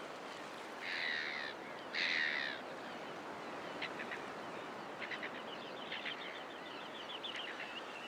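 Surf washing on a sandy beach, with two harsh, caw-like bird calls about one and two seconds in, then faint short chirps of small birds.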